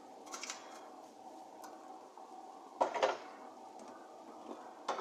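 Kitchen clatter from seasoning containers and a pot being handled: a few light clicks near the start and a louder knock about three seconds in. A steady faint hum runs underneath.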